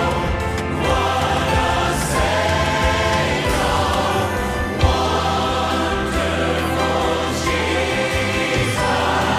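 Christian worship music: a choir singing sustained lines over a steady instrumental backing.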